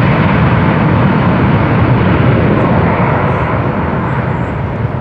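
A fixed-wing aircraft's engines running loud and steady, fading slightly in the second half.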